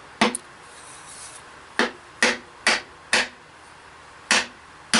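Wooden hammer handle rapped end-down on a wooden board about seven times, sharp knocks a half second to a second apart, driving the ball-peen hammer head down onto the handle to seat it.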